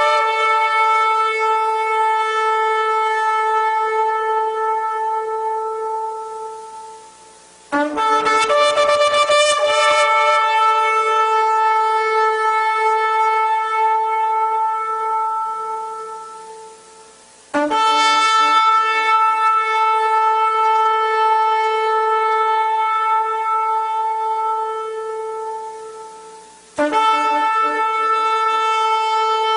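Shofar blasts: long, held horn notes, one after another. Each begins suddenly, with a brief lower note rising to the main pitch, holds for several seconds and then fades away. New blasts start about 8, 18 and 27 seconds in.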